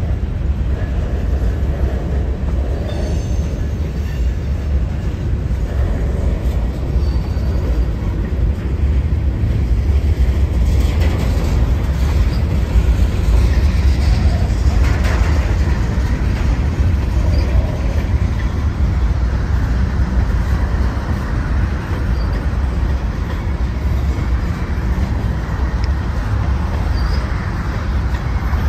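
Union Pacific freight train of covered hopper cars rolling past close by: a steady low rumble of steel wheels on the rails, with a few brief, faint wheel squeals now and then.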